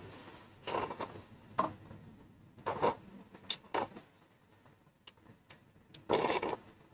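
A person eating bún riêu crab noodle soup close to the microphone: a run of short slurping and mouth sounds, about six in all, the longest near the end.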